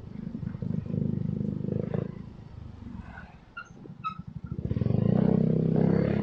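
Motorcycle engine running while riding: it eases off into a quieter lull partway through, then the throttle opens again and it grows loud about five seconds in.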